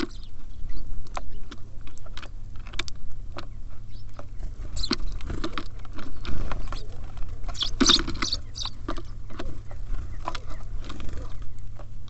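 Small birds feeding at a bird feeder: irregular pecking taps and clicks of beaks and feet on the feeder, with a few short high chirps about five and eight seconds in, over a steady low rumble.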